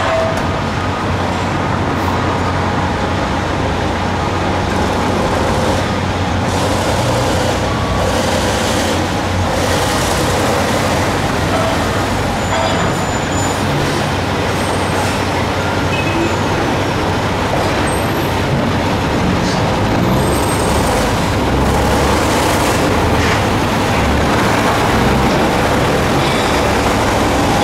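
Heavy demolition excavators running: a steady diesel engine rumble with scattered knocks and clanks as the machines work the scrap metal and rubble.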